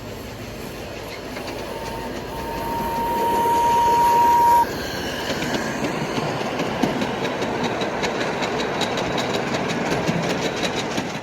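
Miniature ride-on railway train running on its track, with rolling noise that builds in the first half and a steady high tone lasting about three seconds. Then a run of sharp clicks, wheels over rail joints, before the sound fades out near the end.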